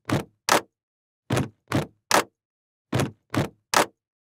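Edited-in sound effect of short noisy swishes that sweep downward, three at a time about 0.4 s apart, with dead silence between the sets.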